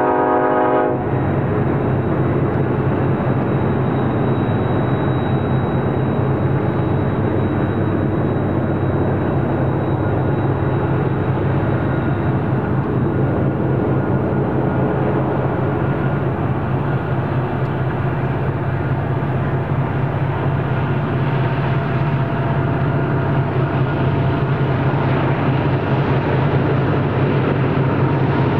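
Freight train's diesel locomotive horn cutting off about a second in, then the locomotives' engines running with a steady low drone over the rumble of the passing train.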